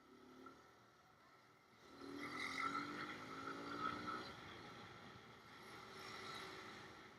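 Small motorcycle engine running, growing louder and rising slightly in pitch about two seconds in, then easing off.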